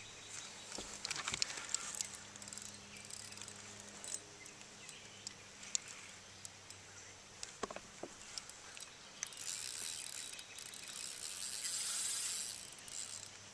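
Quiet outdoor ambience on a pond: a faint hiss with scattered small clicks and ticks, and a higher hiss that swells about two-thirds of the way in and fades near the end.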